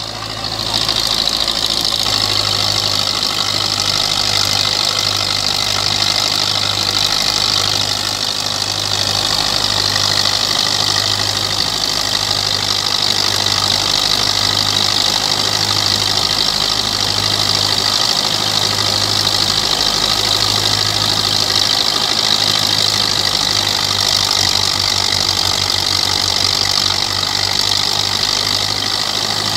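Belarus 510 tractor's diesel engine running steadily under heavy load as it drives a wheat thresher, with the thresher's steady whir on top.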